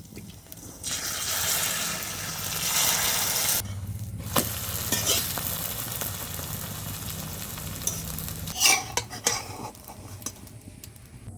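Egg omelette frying in oil in a karahi: a hard sizzle for the first few seconds, then quieter frying while a spatula scrapes and clicks against the pan.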